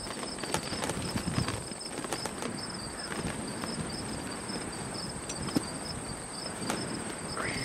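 Insects buzzing steadily with a repeated high chirp, over scattered light clicks and knocks.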